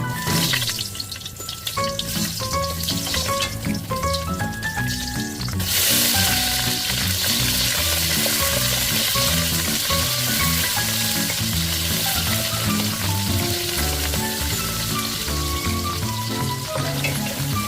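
Stir-fry sizzling in a hot pan: the sizzle starts suddenly about six seconds in, as food goes into the hot oil, and then runs on steadily.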